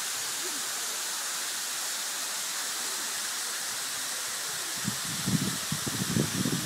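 Hanakapiai Falls pouring into its plunge pool: a steady, even rushing hiss of falling water. Irregular low rumbling starts about five seconds in.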